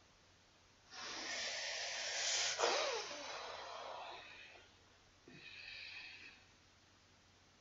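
A person's heavy breath out, long and hissing, starting about a second in and lasting some three seconds, then a second, shorter breath about five seconds in.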